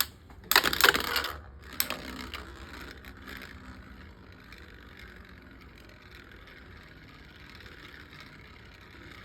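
Beyblade Micros spinning tops launched into a small plastic stadium with a loud ratcheting rip about half a second in and a sharp click near two seconds, then spinning and grinding against each other and the stadium floor as a faint steady whir that slowly dies down.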